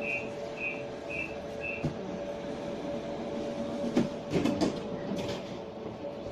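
Končar TMK 2200 low-floor tram heard from on board: four short high beeps of the door warning in the first two seconds over a steady hum, then a few knocks and clatters about four to five seconds in.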